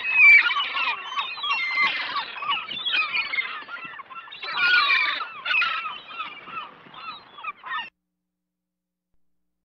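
Gulls calling over one another in a dense, continuous chorus of squawks. It cuts off suddenly about eight seconds in.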